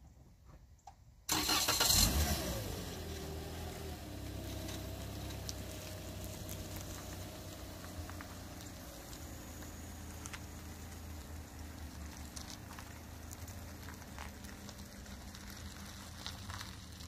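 A car engine starting about a second in, flaring briefly, then running steadily with its revs slowly falling as it settles.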